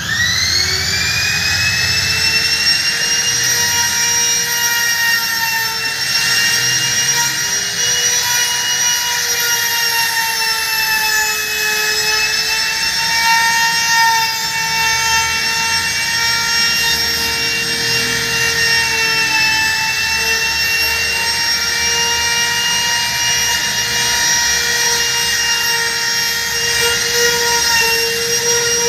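A handheld corded power tool's electric motor spins up to a high whine and runs steadily while working along a laminated board, its pitch sagging and recovering slightly under load.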